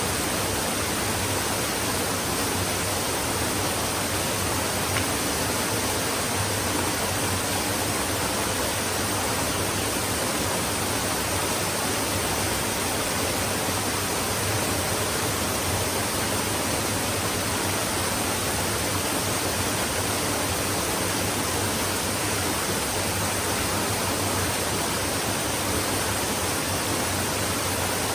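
Stream water flowing steadily, a constant even rush with no changes.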